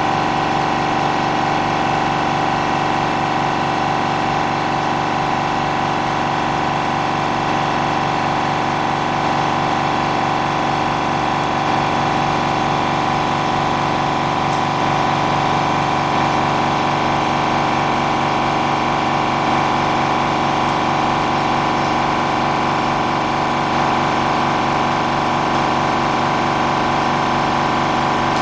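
Electric air pump running steadily, a constant machine hum with several steady tones and no change in speed. It starts up just before this and keeps running throughout.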